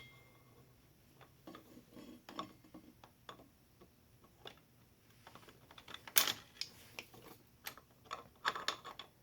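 Light, scattered metallic clicks and taps of a starter jack shaft pinion gear and pliers being worked onto the jack shaft, with the loudest clack about six seconds in and a quick run of clicks near the end.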